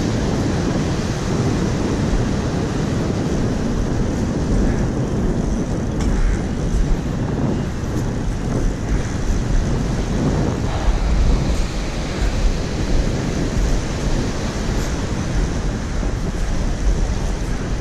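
Wind buffeting the microphone, with waves breaking and washing up a shingle beach.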